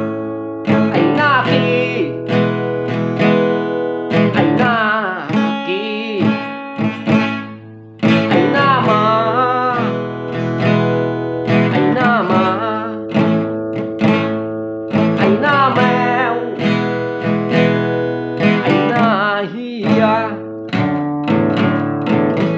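Acoustic guitar strummed in chords, with a man's voice singing a wavering melody over it. The guitar thins out around seven seconds in and comes back with a strong strum at eight.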